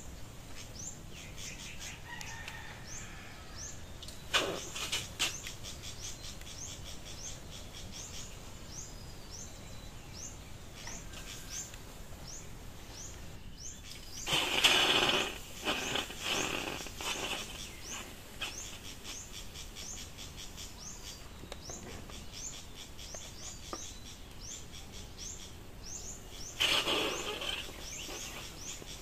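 A bird repeating a short, high, falling chirp about once or twice a second. Three louder short bursts of noise break in: one about four seconds in, a longer one of about a second and a half midway, and one near the end.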